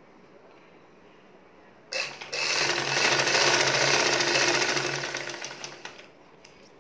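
Black Vidya domestic sewing machine stitching a short seam: a fast run of stitching that starts suddenly about two seconds in, then slows and dies away about four seconds later.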